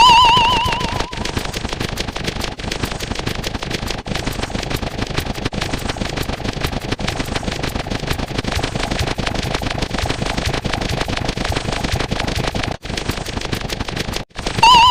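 Dense, rapid popping and crackling that runs without a break, like a long string of firecrackers going off, with a short warbling beep at the very start and again near the end.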